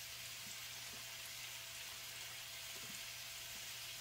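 Chicken pieces frying in oil in a cast iron skillet: a steady, quiet sizzle.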